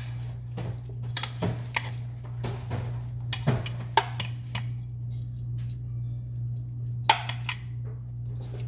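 Chicken wings being laid into baking pans: scattered light clinks and knocks of the pans, a few sharper ones, over a steady low hum.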